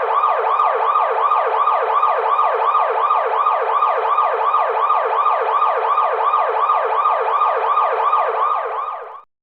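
Car alarm siren going off, its tone sweeping in a fast repeating cycle about three times a second, then cutting off near the end.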